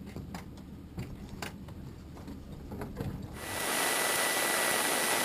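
A few light knocks and clicks over a faint low hum. About three and a half seconds in, a steady electronic hiss with a thin high whine switches on suddenly: the cockpit intercom/headset audio feed going live.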